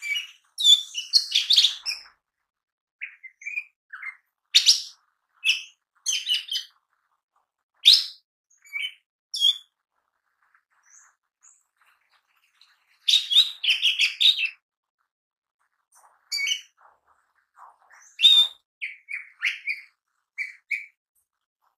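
Lesser green leafbird (cucak ijo mini) singing vigorously in separate bursts of rapid, varied chirps and whistles, with short pauses between them; the densest burst comes about two-thirds of the way through.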